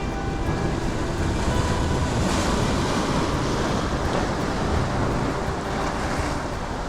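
Sea waves washing against a rocky shoreline, a steady rushing noise that swells into a louder wash a little past two seconds in, with wind buffeting the microphone.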